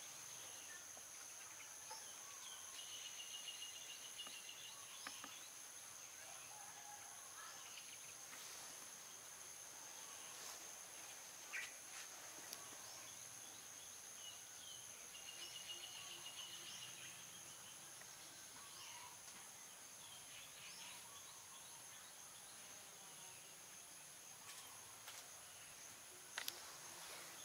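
Faint outdoor ambience of insects droning steadily in two high tones, one of them pulsing, with occasional faint bird-like chirps and a few small clicks.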